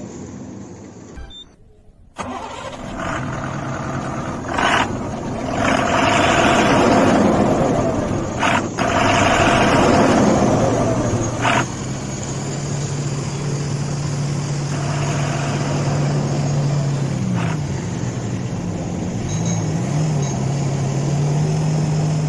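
A bus engine starting about two seconds in and running up in a few louder surges, with several sharp knocks. It then settles into a steady idle.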